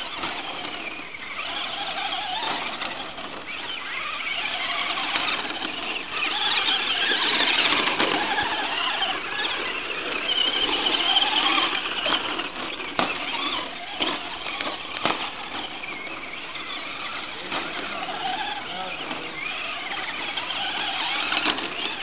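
Traxxas Slash short-course RC trucks racing. Their brushless electric motors whine, rising and falling in pitch with the throttle. A few sharp knocks come about halfway through.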